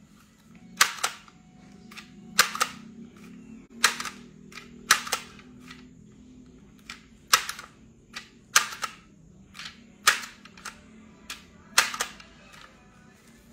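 Handheld price-label gun being squeezed repeatedly to feed out price stickers: about eight sharp plastic clacks, most of them doubled as the trigger snaps shut and springs back, coming every one to two seconds, with a few softer clicks between.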